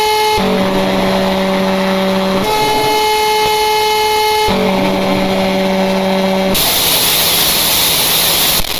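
Emergency alert system (EAS) alarm: two loud tones alternate, each held about two seconds, higher then lower, twice over. Near the end the tones give way to about two seconds of loud static hiss, which cuts off suddenly.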